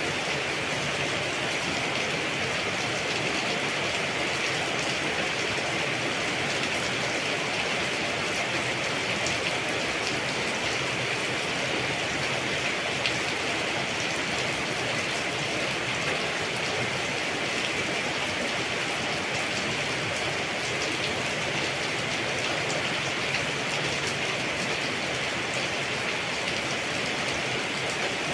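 Steady rain: an even hiss that neither builds nor fades, with scattered sharper drop ticks.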